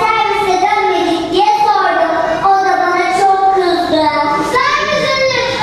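A child singing a melody solo, holding notes and gliding between them.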